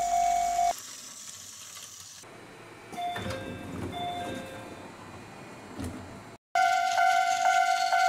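Plarail toy level crossing's electronic warning bell ringing, a steady tone pulsing two to three times a second. It cuts off under a second in, leaving a quiet stretch with a few short beeping notes, and the crossing bell starts up again loud after about six and a half seconds.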